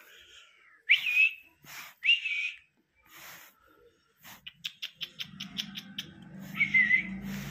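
Cocker spaniel puppies whining: short, high-pitched cries about a second in, again at two seconds and once more near the end. A quick run of light clicks comes in the middle, and a low hum comes in during the second half.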